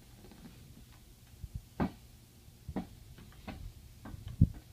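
A few irregular light knocks and taps, with one louder low thump near the end, over a faint steady hum.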